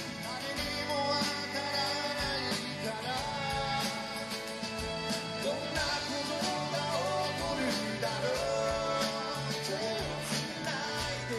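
Live band playing a song: acoustic guitars strummed over electric bass and a drum kit keeping a steady beat, with a man singing lead.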